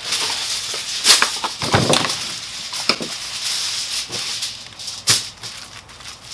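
Thin aluminium foil crinkling and rustling as a sheet is pulled from the roll and pressed around a foil-wrapped package, with a few sharp crackles.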